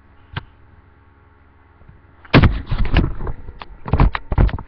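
A single click, then from about halfway a run of loud, irregular knocks and bangs.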